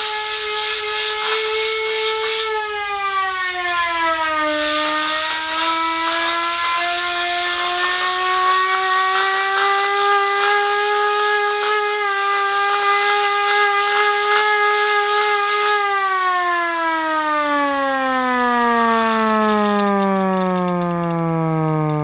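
Hand-cranked siren wailing over a strong airy rush. Its pitch sags and climbs back a few seconds in as the cranking speed changes, holds steady, then winds down in a long falling glide near the end.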